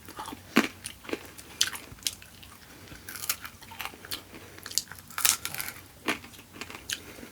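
Close-miked eating sounds: a person chewing and biting food, with irregular wet smacks and crunchy clicks.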